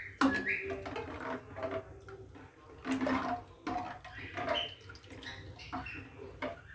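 Metal ladle stirring thin kadhi in a metal pan: liquid sloshing with irregular scrapes and clinks of the ladle against the pan.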